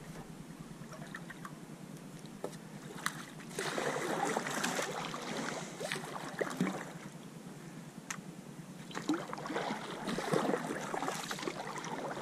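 Kayak paddle strokes splashing in calm water, in two spells: one starting about three and a half seconds in, and another from about nine seconds in. A few sharp clicks come between them.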